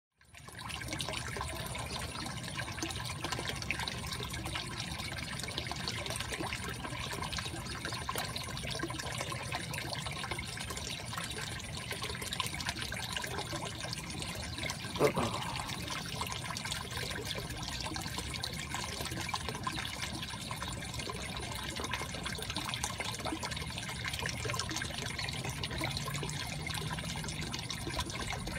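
Steady trickling and splashing of water from a pump outlet bubbling at the surface of a small fish pond. About halfway through there is a single brief knock.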